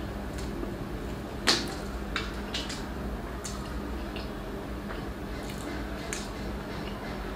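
A bare hand kneading and mixing cooked rice with fried chicken on a banana leaf: a run of soft, wet squishing clicks, with one sharper click about a second and a half in. A steady low hum lies underneath.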